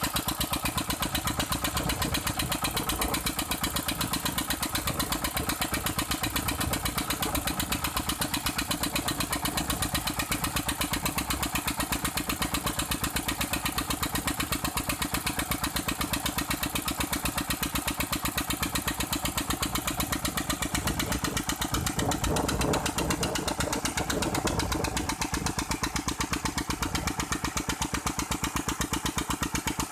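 Single-cylinder stationary diesel engine running steadily with an even, rapid beat, belt-driving a gearbox and an irrigation water pump that is delivering water.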